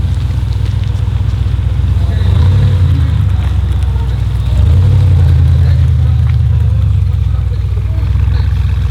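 Audi RS6 C8's twin-turbo 4.0-litre V8 through a Capristo exhaust, running at low revs with a deep, steady rumble. It gets louder about two seconds in and again about four and a half seconds in, with no rev climbs.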